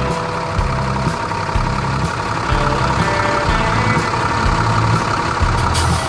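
Cartoon tractor engine sound effect running steadily over light background music with a bouncing bass line, with a short hiss near the end.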